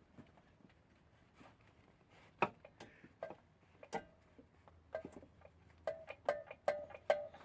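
Irregular metallic clinks and rattles as the clutch and dual-mass flywheel are jiggled by hand, sparse at first and then coming quick and close together, each with a short ringing tone. The parts hang loose because the dual-mass flywheel has failed and the clutch is mangled.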